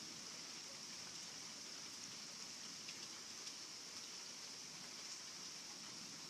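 Heavy rain falling steadily: an even, dense hiss with faint scattered drop ticks.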